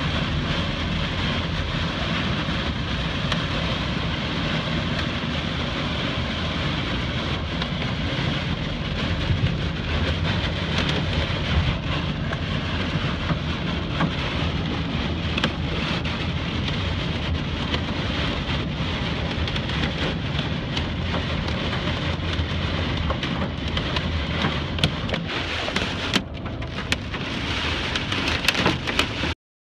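Heavy wind-driven rain pelting a vehicle's glass and body, heard from inside the cabin. A steady rush of rain and wind with a low rumble, dotted with sharp taps of drops striking the glass. It cuts off suddenly near the end.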